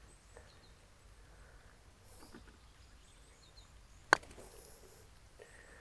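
A single sharp click of a golf club striking a ball, about four seconds in, against quiet outdoor background.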